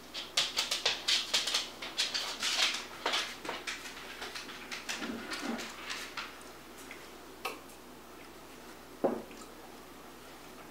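A quick, irregular run of sharp clicks and clacks that thins out after about six seconds, followed by a couple of single clicks.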